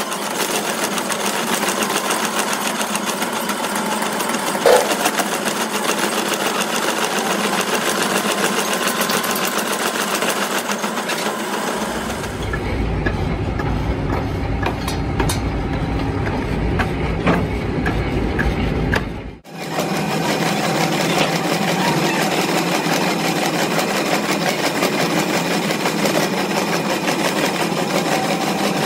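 Metal lathe turning a steel tractor rear axle half shaft, the cutting tool taking a cut with a fast, even mechanical clatter as chips come off. For several seconds in the middle it gives way to a deeper machine rumble, then cuts suddenly back to the cutting clatter.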